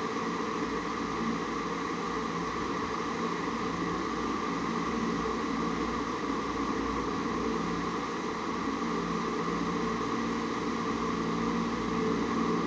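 Steady hum and hiss of a running motorised appliance in a small room, with a few constant whining tones.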